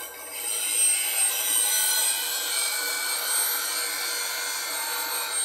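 Bowl gouge held in a Wolverine jig against a spinning bench grinder wheel, giving a steady hissing grind that eases briefly at the start and then holds. Steel is being taken off the gouge's tip to get rid of a low spot in the edge.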